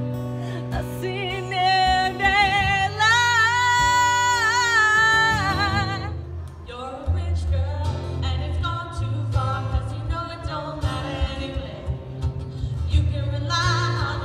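A woman singing live into a microphone over guitar accompaniment, amplified through a small PA. She holds one long, slightly wavering note for about four seconds, then sings shorter phrases.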